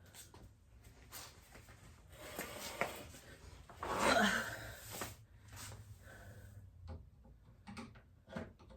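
Scattered handling noises: light knocks and clicks, with a longer rustling scrape about four seconds in, the loudest moment.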